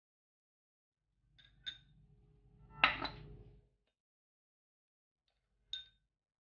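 Small ceramic bowls clinking against each other and the counter: a light ringing clink about one and a half seconds in, a louder knock followed by a brief scrape about three seconds in, and another ringing clink near the end.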